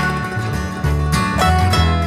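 Background music: acoustic guitar and other plucked strings in a country or bluegrass style over a steady bass.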